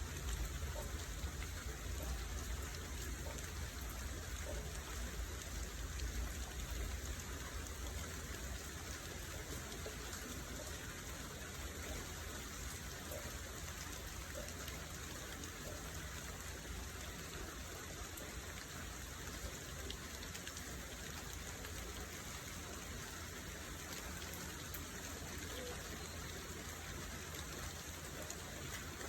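Steady rain falling: an even, continuous hiss with a constant low rumble underneath.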